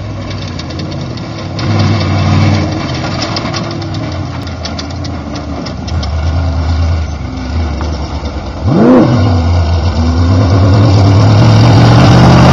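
Class 1 desert race car engines running, their pitch rising and falling, with one sharp rev climbing steeply in pitch about nine seconds in. The engine noise grows louder toward the end.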